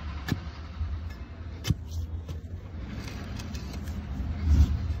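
Steel digging bar striking hard, rocky dirt in a hole: two sharp strikes about a second and a half apart, then quieter scraping and crunching of soil and stones, and a dull thump near the end. A steady low rumble lies under it.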